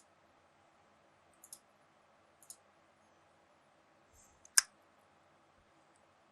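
Computer mouse clicks: two light clicks about a second apart, then a soft one and a single sharper, louder click near the end, as lighting modes are selected in the keyboard's software.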